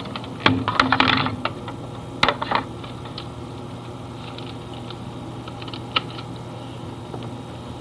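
A cluster of small clicks and rattles about half a second in, another brief clatter around two seconds, and a single sharp click near six seconds, over a steady low hum.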